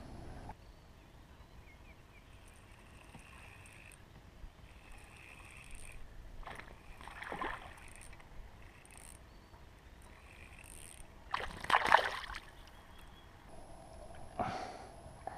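Faint water sounds around a kayak with three short splashes or knocks, the loudest about twelve seconds in, as a hooked bass is fought up to the side of the kayak.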